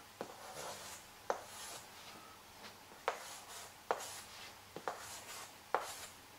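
Chalk writing numerals on a blackboard: scratchy strokes with about six sharp taps as the chalk strikes the board.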